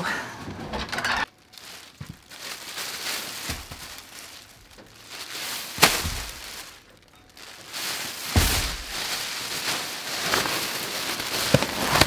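Black plastic garbage bag crinkling and rustling as it is handled and carried, with a sharp click about six seconds in and a dull thump a little after eight seconds.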